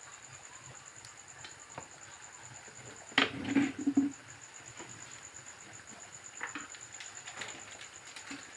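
Faint crackling and sizzling of onions and bay leaves frying in oil in a wok over a clay-stove fire, under a steady high insect trill. A brief louder burst of noise comes about three seconds in.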